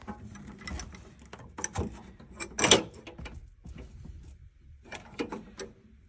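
Irregular metallic clicks and knocks as the retaining pin is pulled from a combi boiler's expansion vessel copper pipe connection and the pipe is wiggled free, with a louder clack about two and a half seconds in and another about five seconds in.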